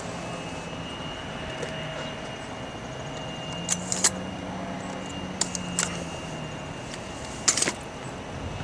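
A handful of short metallic jingling clicks close to the microphone, the loudest near the middle and near the end, over steady outdoor background noise. A faint low drone swells and fades in the middle from the distant approaching train.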